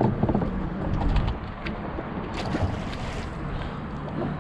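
Wind buffeting the microphone over water around a small boat, with a few light knocks a little past the middle.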